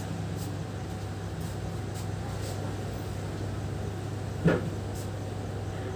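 A steady low hum of a running electric appliance, drying a wet mattress, with one dull knock about four and a half seconds in.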